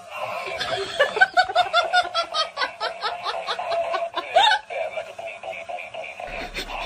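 A person laughing: a run of quick rhythmic laughs, about four or five a second, which die down after about four and a half seconds.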